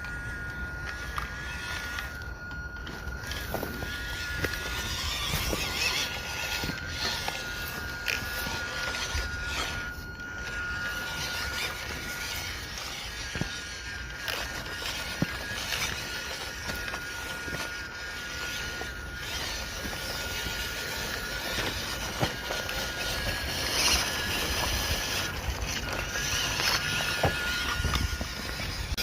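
Small electric motor and gearbox of an MN99 RC Land Rover D90 crawler whining on one steady high note as it crawls, with scattered clicks and crunches of tyres on stones and dirt.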